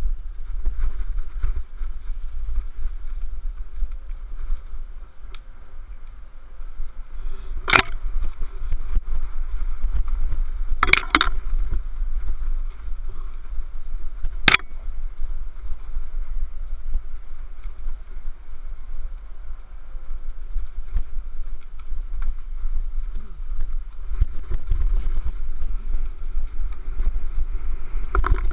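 Mountain bike rolling down a dirt trail: wind buffeting the microphone over the crunch of tyres on dirt and leaves. Sharp knocks from the bike jolting over bumps come about eight seconds in, twice in quick succession about eleven seconds in, and once more a few seconds later.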